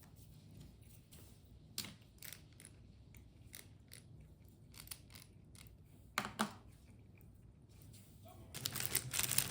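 Scattered small clicks and taps of things being handled, then from about 8.5 s a dense crinkling rustle like plastic packaging being handled.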